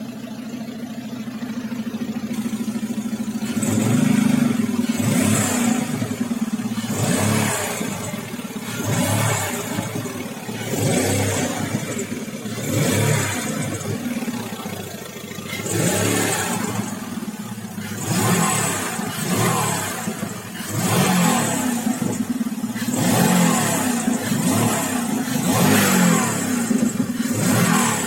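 Volkswagen Golf Mk4 engine idling and being revved in repeated short blips, about every two seconds. With each rev a high whistle comes from under the hood.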